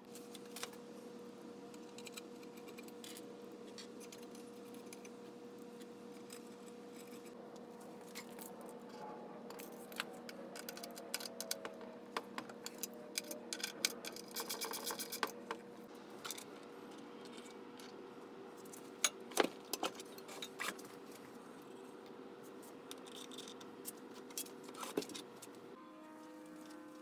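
Metal hardware and aluminium extrusion being handled: scattered clinks and knocks, with a dense metallic jingle about halfway through and a few sharp knocks after it, over a steady low hum.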